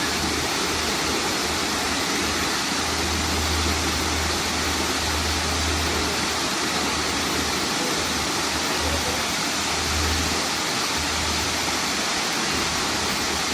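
Waterfall: a steady, even rush of falling water, with a low rumble underneath that swells and fades.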